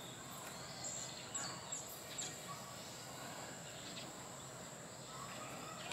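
Outdoor ambience: a steady, thin, high-pitched hum, like an insect's, with a few short high chirps scattered through it, most of them in the first half.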